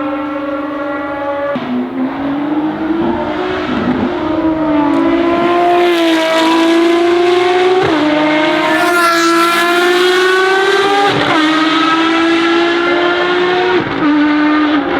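Ferrari FXX Evoluzione's V12 engine accelerating hard, its pitch climbing through each gear and dropping sharply at upshifts, about four times. Loudest near the middle as the car comes past.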